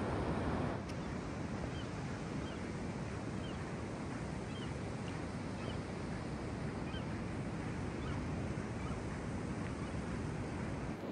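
Steady rush of ocean surf, with faint short bird calls recurring about once a second.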